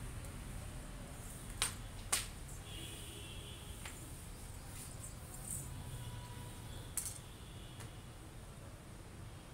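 Fingers picking through long wet hair for nits: a few sharp clicks, two close together about a second and a half in and one more near the end, over a low steady background rumble.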